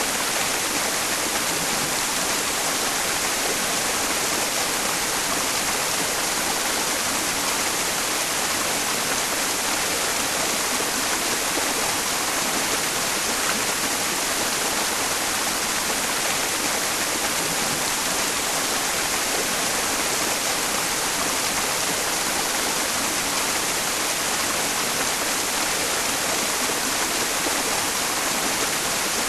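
Mountain stream running steadily, blended with white noise into an even, unbroken hiss that is strongest in the high range.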